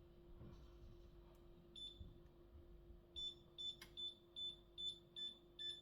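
Electric stove's control panel beeping as it is switched on and set: a single short high beep about two seconds in, then a quick, evenly spaced run of beeps, two to three a second, from about three seconds in. A faint steady hum underneath.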